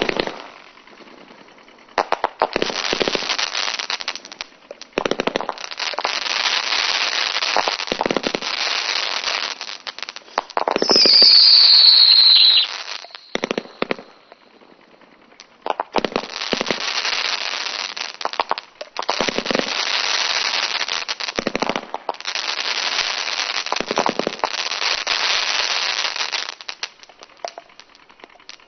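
Daytime firework battery firing: several long stretches of rapid shots and crackling, with short pauses between them. A loud falling whistle comes about eleven seconds in.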